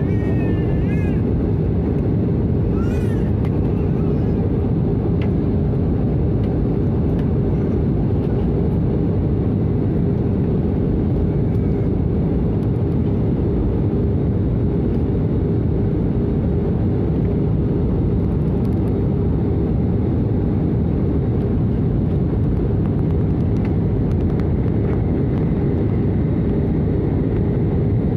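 Jet airliner cabin noise in cruise flight, heard at a window seat: a steady, loud low rush of engine and airflow with a faint steady hum under it.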